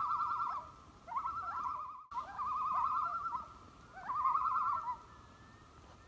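Common loon tremolo calls: a rapid, wavering laughing call, given four times in a row.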